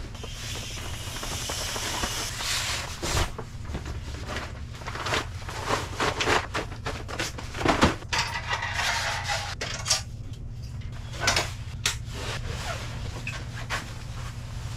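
Handling noise of camping gear being packed up: fabric rustling with frequent knocks and clicks, over a steady low hum.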